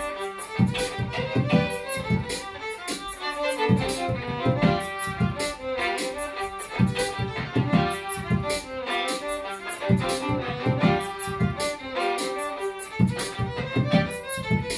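Two violins playing a lively contemporary Irish fiddle tune together, over a looped beatbox rhythm that keeps a steady percussive beat.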